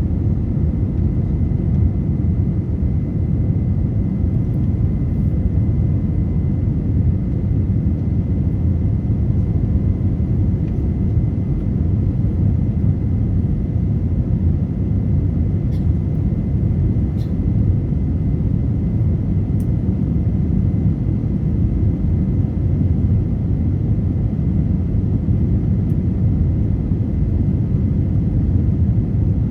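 Airliner's steady low rumble during takeoff and climb, with a faint steady whine above it.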